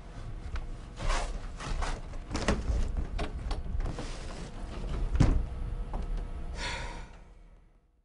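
Footsteps and a door: a run of knocks and thumps, the loudest a deep thump about five seconds in. The sound then fades out to silence near the end.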